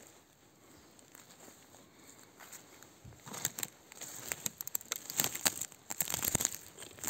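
Footsteps through dry fallen twigs and branches on a forest floor: faint rustling at first, then from about three seconds in a dense run of crackling and snapping as the twigs break underfoot.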